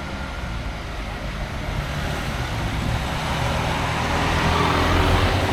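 A motor vehicle driving past, its engine sound growing steadily louder and loudest near the end.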